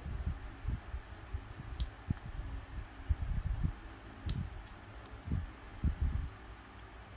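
Plastic model kit parts being handled and worked by hand on a desk: a run of dull knocks and handling noise with a couple of sharp plastic clicks, over a steady low hum.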